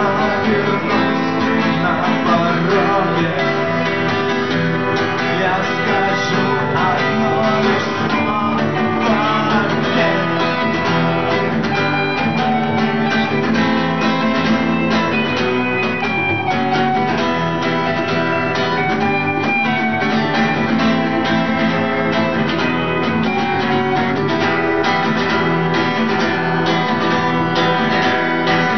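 Acoustic guitars playing a rock song in a live acoustic concert performance, continuous and steady.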